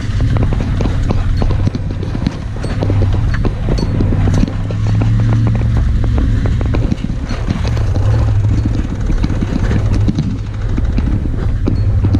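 Pickup truck engine running under way, heard from inside the cab on a rough dirt road. Its low, steady note rises and falls a little, with frequent knocks and rattles from the bumps.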